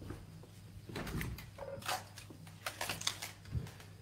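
Faint crisp rustling and crackling of a head of lettuce being handled and its outer leaves pulled off, with a soft knock near the end, over a steady low hum.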